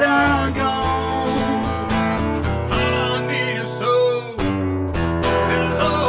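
Acoustic version of a blues and rockabilly song: an acoustic guitar strummed under a man's sung lead vocal with a wavering held note. There is a short break a little after four seconds in.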